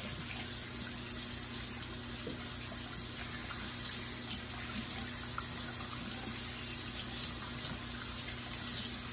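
Bathroom faucet running in a steady stream over a shaving brush held in the hands, the water splashing off the hands and brush into the sink basin.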